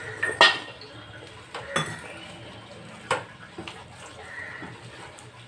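Hand mixing chopped spinach, mashed paneer and potato in a stainless steel bowl, with three sharp metallic clinks against the bowl, the loudest about half a second in, and a few lighter knocks.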